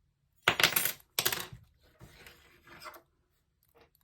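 Handling noise from a cross lock and its metal picking tools: two loud scraping rattles about half a second and just over a second in, then softer scraping.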